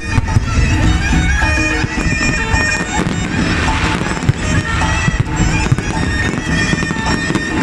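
Loud music led by a reedy, bagpipe-like wind instrument, with the low thumps of fireworks underneath and a crackling burst about three to four seconds in.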